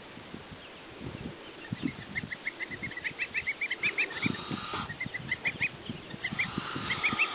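Baby goslings and ducklings peeping, in quick runs of short high peeps, with two longer, harsher calls about four and six and a half seconds in. Soft low knocks sound under the peeping.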